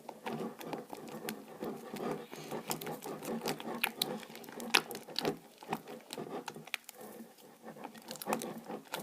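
Fluffy glue-and-shaving-gel slime being stirred in a bowl as the borax activator is mixed in: a run of irregular small sticky clicks and squelches.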